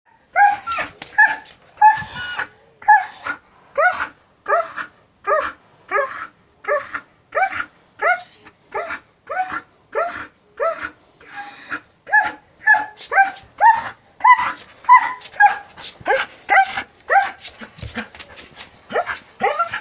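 A 16½-year-old Samoyed bitch crying out in a seizure, with short, pitched cries repeated evenly about twice a second without a break. The seizure looks epileptic but is caused by a brain tumour pressing on the brain.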